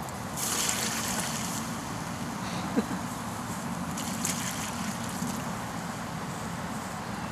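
Water poured from a plastic bucket splashing onto a plywood board and a burnt-out lithium-polymer battery pack, dousing the smouldering cell, in two spells of splashing, with one short sharp click about three seconds in.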